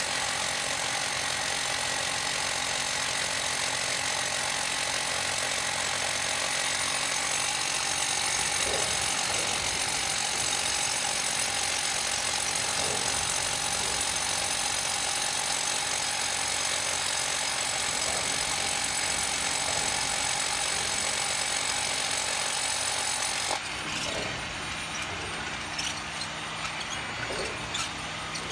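Rotary hammer drill boring into concrete, a steady hammering run with a high whine. Near the end the high whine cuts out and the sound drops to a quieter running noise.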